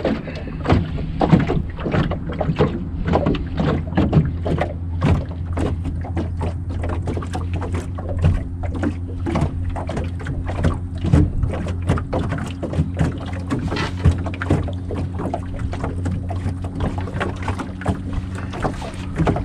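Minn Kota i-Pilot electric trolling motor humming steadily on an aluminium jon boat, with frequent short, irregular knocks and slaps over it.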